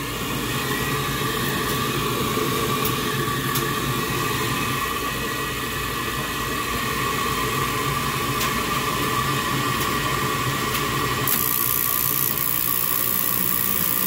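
Rheem gas furnace's draft inducer motor running with a steady hum and whine. About eleven seconds in a hiss joins it as gas flows and a burner lights, and the flame does not carry across to the other burners, whose crossovers are partly blocked with dirt.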